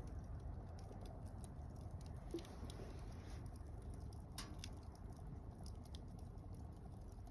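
Campfire of mixed softwood and hardwood firewood burning, a low steady rumble of flame with scattered small crackles and pops, one sharper pop about four seconds in.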